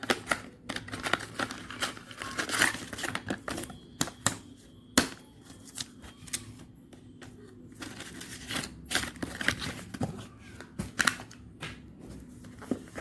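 Phone box and paper packaging being handled: irregular rustling and crinkling with sharp clicks and taps.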